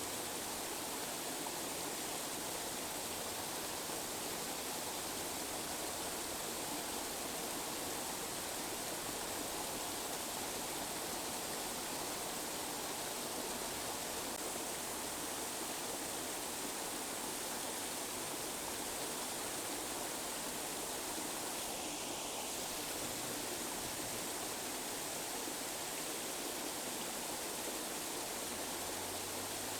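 Tinnitus-masking noise: a steady, even hiss spread across the treble and midrange, with little bass.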